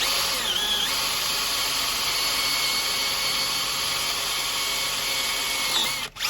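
Handheld electric drill running under load, its 3 mm bit boring into a snapped, very hard grade 12.9 bolt kept wet with cutting fluid. The motor whine rises as it speeds up at the start, runs steadily, and dips briefly near the end.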